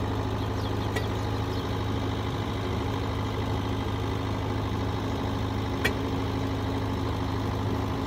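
An engine idling steadily, a low even hum, with two sharp clicks, about a second in and near six seconds in.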